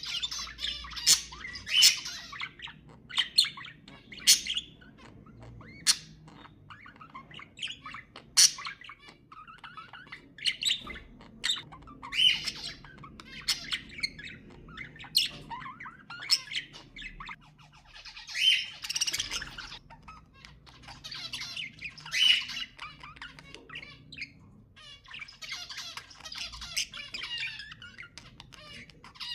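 Budgerigars chattering: a steady stream of sharp chirps and clicks, broken by harsher squawks.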